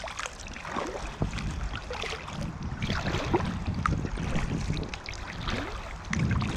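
River water rushing and splashing around a small paddled boat as it runs the tongue of a small rapid, with wind rumbling on the microphone.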